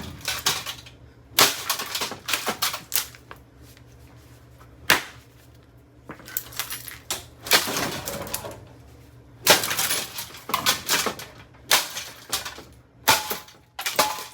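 Plastic housing of an AeroSpeed BX100 box fan being pulled apart by hand: irregular clusters of sharp cracks, snaps and clatter, with short quieter gaps between them.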